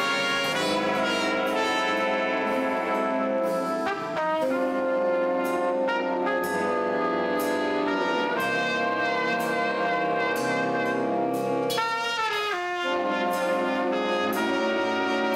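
Live jazz big band playing, brass to the fore with a trumpet out front, with quick runs of notes about four seconds in and again near the end.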